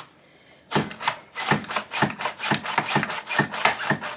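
Carrots being pushed down through the julienne blade of a Dash Safe Slice mandoline with its food pusher: a quick run of scraping strokes, several a second, starting about a second in.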